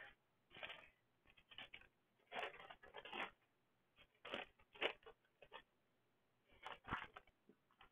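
Faint crinkling of small plastic bags of diamond painting drills being handled, in several short bursts.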